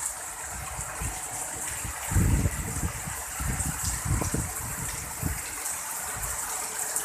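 Heavy tropical downpour hissing steadily, with gusts of strong wind rumbling on the microphone, the strongest about two seconds in.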